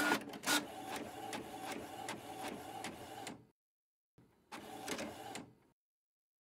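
Printer mechanism running with a regular clatter of about three strokes a second. It stops a little over three seconds in, and a shorter second run of printing follows about a second later.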